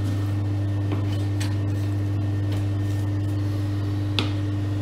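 A steady low hum, with a few faint clicks and taps of a filleting knife against a plastic cutting board as a lemon sole fillet is trimmed; one sharper tick comes about four seconds in.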